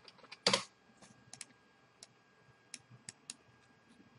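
Computer keyboard being typed on, with one firmer keystroke about half a second in and then a handful of light, scattered key or mouse clicks.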